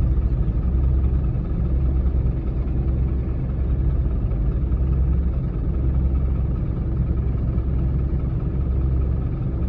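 Bulldozer's diesel engine running steadily, a low even rumble.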